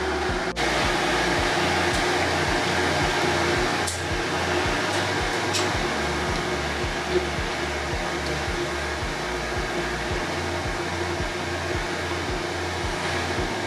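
Background music with a steady pulsing bass beat, about two beats a second, over a steady rushing noise.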